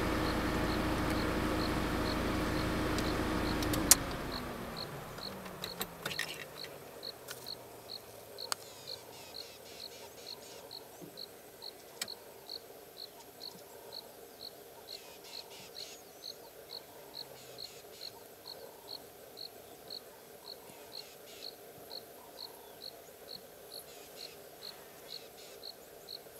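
A steady engine hum fills the first four seconds, then stops with a click and winds down in pitch. After that, an insect chirps regularly at a high pitch, about twice a second, with a few faint clicks.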